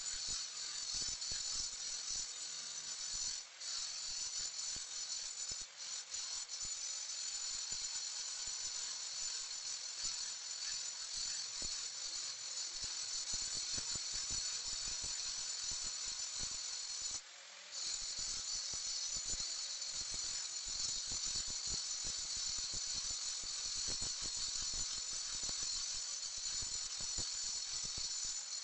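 Electric angle grinder grinding the edge of a granite countertop: a steady high whine over a gritty rasp. The sound drops out for about half a second some seventeen seconds in.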